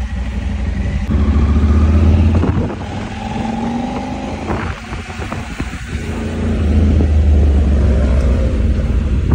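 Motorcycle engine running while riding, with wind buffeting the microphone as a heavy low rumble. It is louder for the first couple of seconds and again in the last few, easing off in between.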